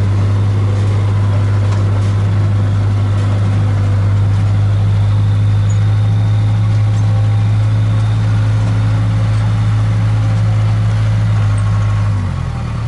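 Case 580K backhoe's four-cylinder diesel engine running steadily, heard from inside the cab. Near the end its pitch and level dip briefly, then pick up again.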